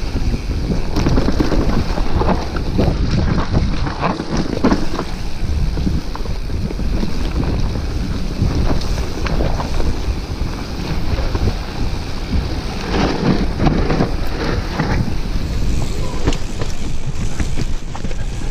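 Wind buffeting the camera microphone as a mountain bike rolls fast down a dirt forest trail, with tyres rumbling on the ground. Short knocks and rattles from the bike running over bumps and roots come in clusters, most thickly in the first few seconds and again about two-thirds of the way through.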